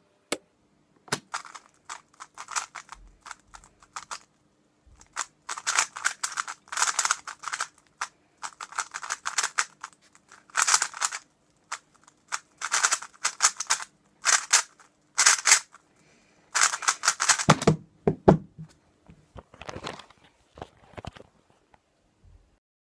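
Plastic stickerless 3x3 speedcube being turned fast: bursts of rapid clicking layer turns with short pauses between them, and a few duller knocks just after the densest burst.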